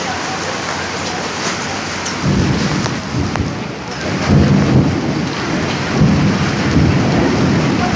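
Heavy rain falling steadily, with low rumbles coming and going from about two seconds in.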